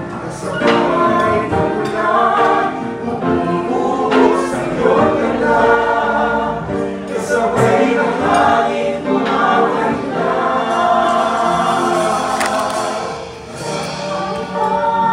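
Cooks and waiters singing together in chorus, several voices at once, with a few sharp percussion hits.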